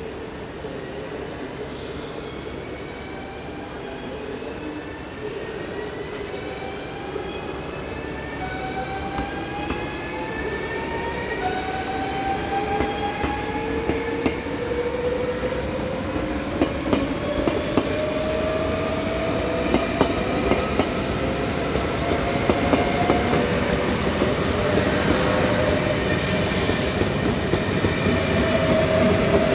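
Electric trains moving through a station. An NS double-deck train's traction motors whine in several tones that keep rising in pitch as it accelerates, while the Fyra V250 high-speed train rolls in alongside. The rumble of wheels on rail, with some squeal, grows steadily louder toward the end.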